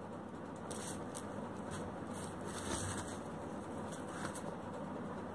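Brief rustles and scrapes of packaging and a cricket bat being handled, a few short ones about a second in, more between two and three seconds, and again around four seconds, over a steady background hiss.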